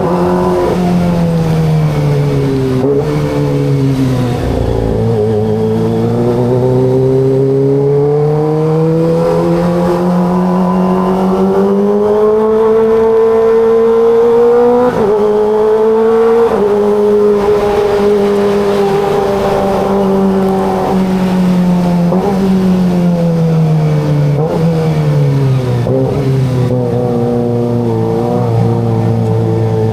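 Kawasaki ZX25RR's 249 cc inline-four engine running under way: the revs fall over the first few seconds, climb steadily for about ten seconds, then ease back down and hold steady near the end.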